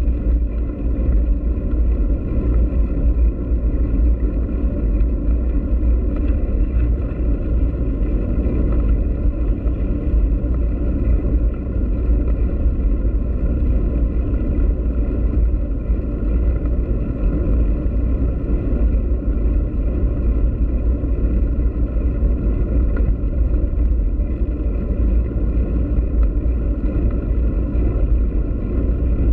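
Steady low rumble of a bicycle rolling over brick paving: wind buffeting and tyre noise picked up by a camera mounted on the bike.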